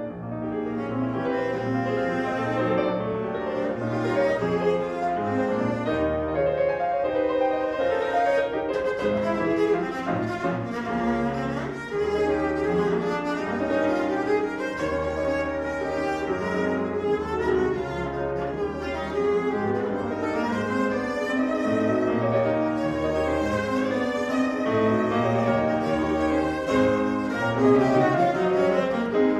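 A cello and a grand piano playing classical chamber music together, the bowed cello over continuous piano.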